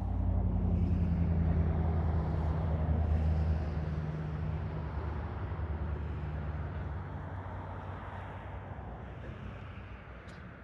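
A motor vehicle's engine running with a steady low hum over road noise, loudest in the first few seconds and then slowly fading away.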